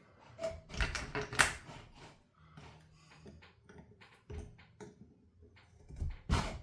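Scattered clicks and knocks of hand tools and small metal parts being handled during a chainsaw teardown, with a sharper knock about a second and a half in and another near the end.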